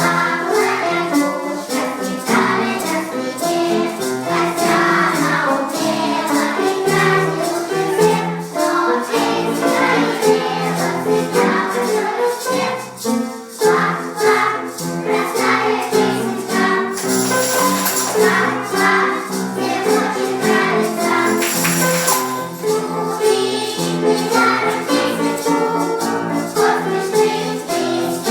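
A children's choir singing a song with a steady beat of shaken percussion such as tambourine or maracas, with two brief brighter shaken flourishes partway through.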